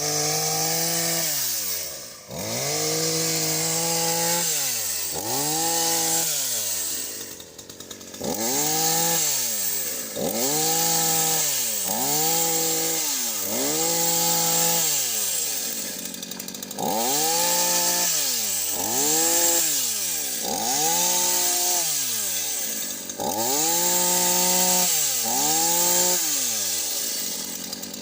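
Two-stroke petrol chainsaw fitted with a brush-cutter attachment on its bar, revved up and let back down over and over, each burst rising quickly, holding briefly at high revs and falling away, roughly every one and a half to two seconds.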